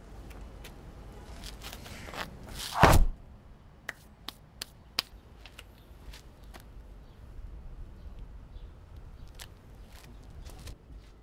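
A dumpster lid slams shut with one loud bang about three seconds in, followed by a scatter of light knocks and footsteps on pavement.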